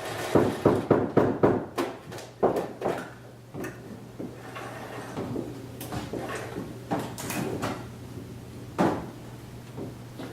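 A quick run of sharp knocks and clatters, like objects being handled and set down, then softer scattered handling noises and one louder knock near the end, over a steady low hum.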